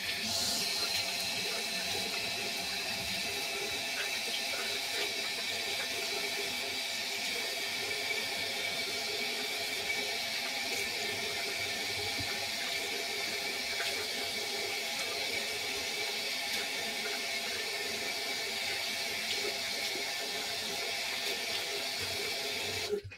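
Water tap running steadily into a sink, shut off suddenly near the end.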